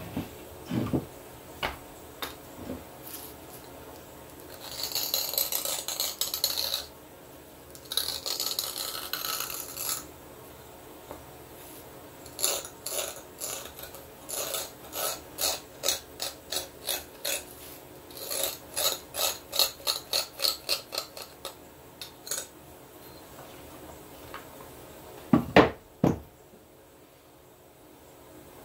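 A copper hand tool is worked along the edge of a knapped stone blade held on a leather pad. There are two stretches of scraping, then a run of short rhythmic strokes about two a second, and two loud knocks near the end.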